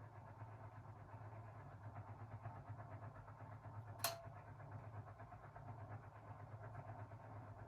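Beko WA 1050 washing machine running with a faint, steady low hum. A single sharp click comes about four seconds in.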